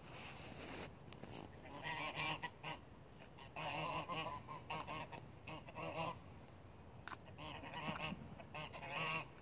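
A flock of domestic geese honking in about six short bouts of calls, each lasting under a second.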